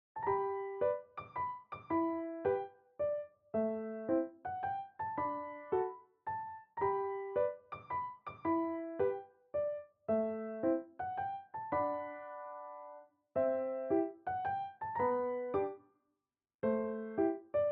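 Background piano music: a melody of single notes and small chords, each struck and fading, with brief pauses.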